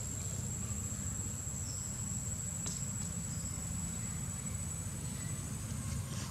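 A steady, high-pitched insect trill, like a cricket's, over a low steady rumble. The trill stops near the end.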